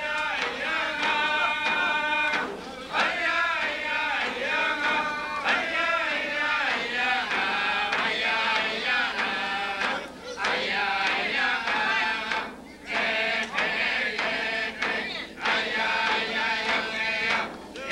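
Yup'ik dance song: a group of men and women singing in unison, chant-like, to the beat of frame drums, with a few brief pauses between phrases.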